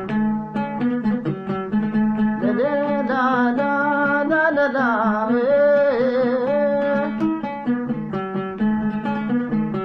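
Oud played with a steady run of plucked notes. A man sings a wavering melodic line over it from about two and a half seconds in, stopping about seven seconds in while the oud carries on.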